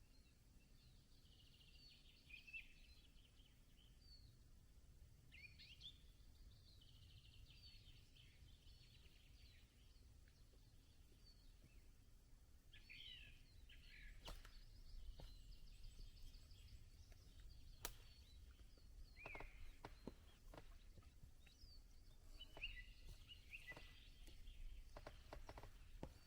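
Small birds chirping and trilling. From about halfway, a few sharp clicks sound over a low, steady rumble.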